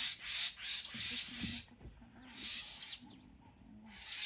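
Wild birds calling: a dense, high chatter of short notes that drops out briefly twice, with lower gliding calls beneath.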